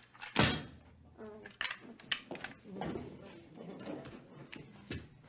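Scattered knocks and clatter of handling, with low, indistinct voices.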